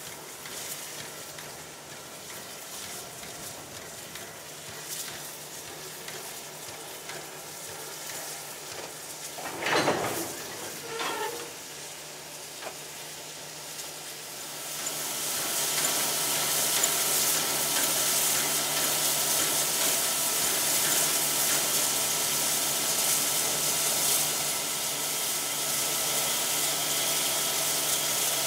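Victorian Railways J class oil-fired steam locomotive J549 edging slowly onto its carriages, with a short loud noise about ten seconds in. From about halfway through, steam hisses steadily and loudly as it blows from the cylinder drain cocks and vents from a pipe on the engine.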